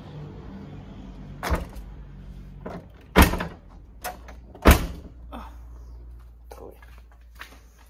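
Car doors being shut: a lighter knock, then two loud slams about a second and a half apart.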